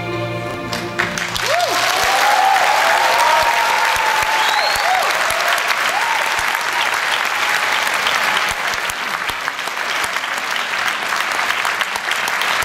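An orchestra's held final chord ends about a second in, and an audience breaks into loud applause, with a few shouts and whoops rising over it in the first seconds.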